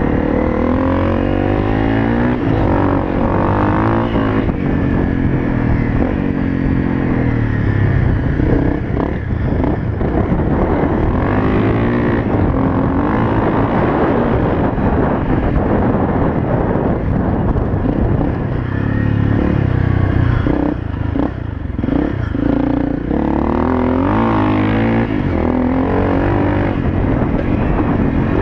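Honda CRF250L's single-cylinder four-stroke engine under way on a dirt track, its note rising and falling with the throttle, with a brief drop in engine level about three-quarters of the way through.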